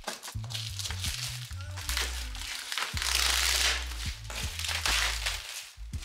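Clear plastic wrapping on a cardboard parcel crinkling and crackling in several bursts as it is cut and pulled open, over background music with a bass line.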